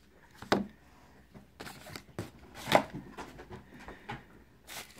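Handling noises: a few scattered sharp knocks and clicks of small objects being moved and set down on a wooden table. The loudest comes a little under three seconds in.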